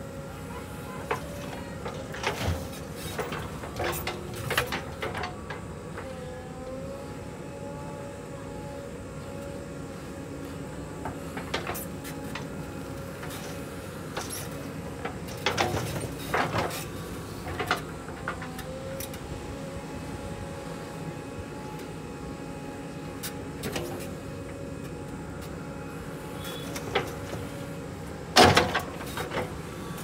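JCB 3DX backhoe loader's diesel engine running steadily under working load, its note wavering up and down, with scattered sharp metallic knocks and clanks; the loudest knock comes near the end.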